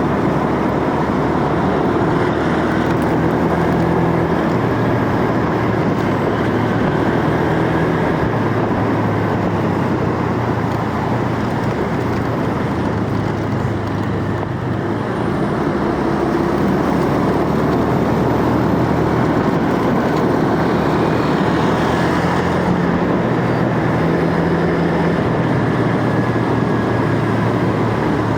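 On-board motorcycle riding sound: loud, steady wind rush over the microphone with the motorcycle engine running underneath, its pitch stepping up and down a little as the throttle changes.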